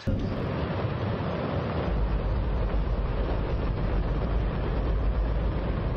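Space Shuttle main engine, a liquid hydrogen–oxygen rocket engine, test-firing on a static test stand: a loud, steady roar that starts suddenly, with a deep rumble building about two seconds in.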